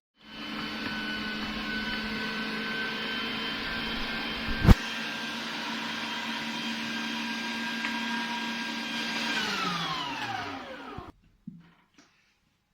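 An electric motor runs at a steady speed with a hum of several even tones, then is switched off about nine seconds in and winds down to a stop, its pitch falling. A single sharp click sounds about halfway through, louder than the motor.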